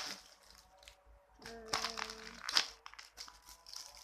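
Crinkling and crackling of plastic as squishy toys are handled, with scattered clicks and a brief steady hum-like tone about halfway through.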